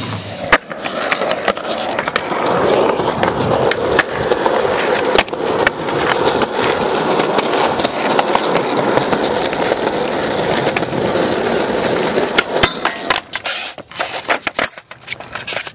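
Skateboard wheels rolling on concrete: a steady rumble broken by frequent sharp clicks and clacks. Near the end the rolling breaks up into separate, louder clacks of the board.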